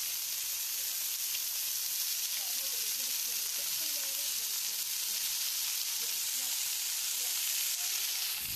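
Hot oil sizzling steadily in a steel wok as a bowlful of dried insects is tipped in to fry.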